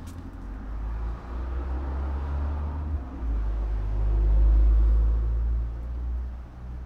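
Low rumble of a passing vehicle, swelling to its loudest about four to five seconds in and then easing off.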